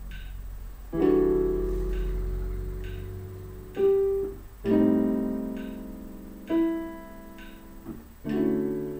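Digital piano chords played slowly, about five in all, each struck and left to ring and fade. A metronome ticks steadily underneath, a little faster than once a second.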